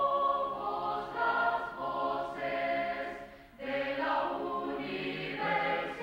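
Background music with choir-like voices holding long, sustained notes, dipping briefly about halfway through before the voices come back.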